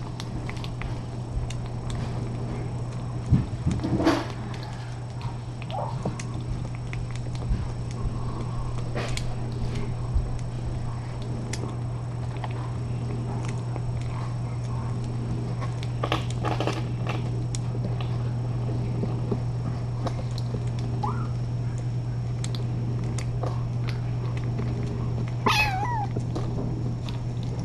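Kittens mewing a few times in short, high calls, the clearest near the end falling in pitch, over a steady low hum with scattered clicks and knocks.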